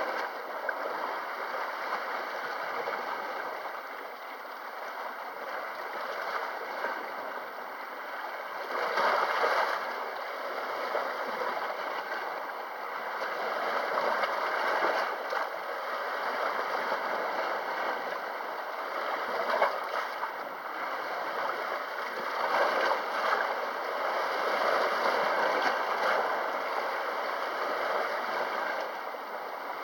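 Sea waves washing and lapping at the shore: a steady rushing that swells and eases every few seconds.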